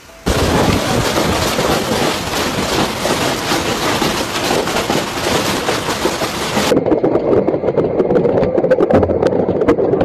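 Large hailstones pelting down, a dense rattle of countless small impacts. About two-thirds of the way through it changes to a duller, more muffled drumming with sharp single hits: hail striking a car, heard from inside.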